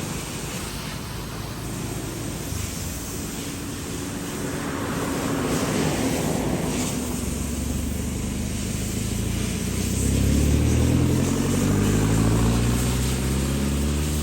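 Airplane flying past overhead: a steady engine noise that swells loudest about two-thirds of the way through, with its tone sweeping upward as it comes over.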